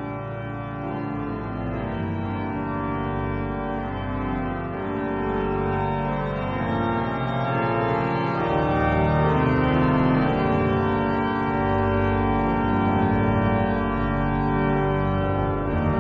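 Organ playing slow, sustained chords over held bass notes, growing louder through the first half.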